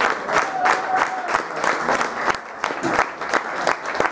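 Crowd of spectators applauding, many hands clapping irregularly, thinning a little in the second half.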